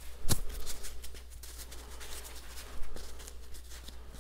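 Handling noise: soft rustling with a few sharp clicks and taps as a protective wrap is worked around a steel rifle barrel, the loudest click about a third of a second in.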